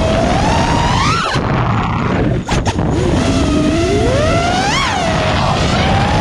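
FPV quadcopter's brushless motors and propellers whining, their pitch rising and falling with throttle over a constant rush of wind on the onboard microphone. The whine climbs about a second in, cuts out briefly midway, then rises to a sharp peak and falls away near the end.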